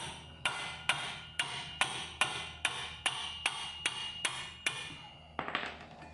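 A hammer tapping repeatedly on a steel spark-plug box spanner, about twelve sharp ringing metal strikes at roughly two a second. The taps are meant to shock a seized spark plug loose from an aluminium cylinder head.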